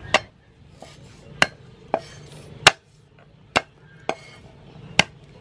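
Heavy cleaver chopping garlic cloves on a thick round wooden chopping block: seven sharp, separate chops at uneven spacing.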